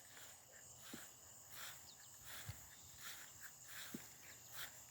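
Near silence, with faint steady chirring of insects and a few soft taps.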